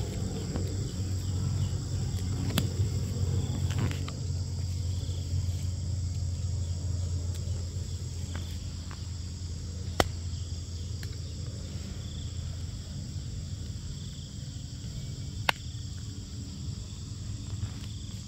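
Steady cricket and insect buzzing over the low drone of a twin-engine turboprop airliner passing overhead, the drone fading over the first half. A few sharp clicks, the loudest about ten seconds in and again a few seconds later.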